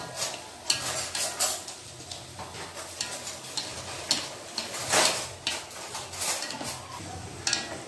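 Raw chicken pieces being stirred and turned in a flat metal wok with chopsticks: scrapes and clicks against the pan over a light sizzle, as the meat is seared to firm it up. The loudest scrape comes about five seconds in.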